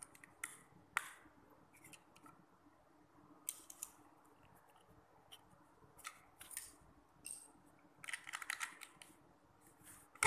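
Lego bricks clicking and tapping as small plastic pieces are handled and pressed onto a baseplate, with a quick run of rattling clicks near the end.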